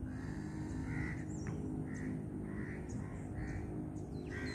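Crows cawing, a series of short calls roughly every half-second to second, over a steady low hum.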